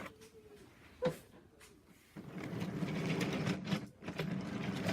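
Wooden toy train engine rolling along wooden track: a single click about a second in, then from about two seconds in a steady rattling rumble of the wheels on the wood.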